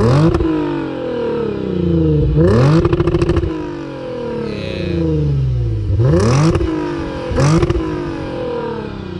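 Lexus RC350's 3.5-litre V6 revved in sharp blips while standing still, through an Invidia mid-pipe and Greddy axle-back exhaust, with a deep, aggressive note. Four revs, each climbing quickly and then falling back toward idle: one right at the start, one about two and a half seconds in, and two close together around six and seven and a half seconds in.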